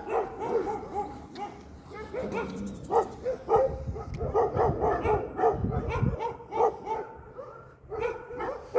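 A pack of dogs barking repeatedly, with many short barks and yips overlapping, thickest in the middle stretch.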